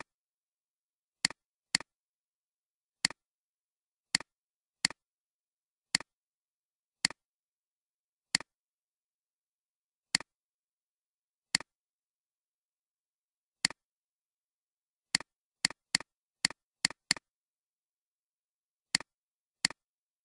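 Computer mouse clicking: about nineteen short, sharp clicks at irregular intervals, coming in quicker runs a little after the middle, with silence between them.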